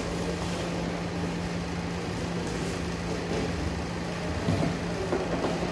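A steady low mechanical hum, with brief handling knocks and rustles about four and a half to five and a half seconds in.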